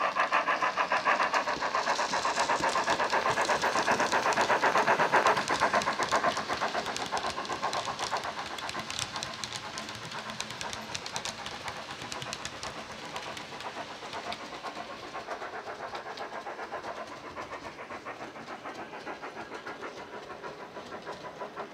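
Sound decoder in a Hornby 9F model locomotive playing rapid, even steam exhaust chuffs through the tender speaker as the model runs under power. Loudest for the first six seconds, then quieter as the train draws away.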